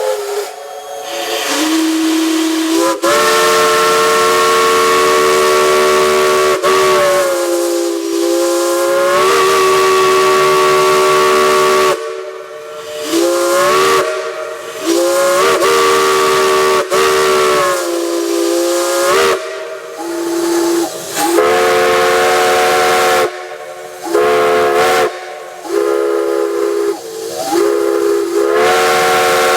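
Steam whistle blown in a series of blasts over a hiss of steam, each blast sliding up in pitch as the valve opens and down as it closes. One long blast comes first, then a run of shorter ones, some wavering up and down.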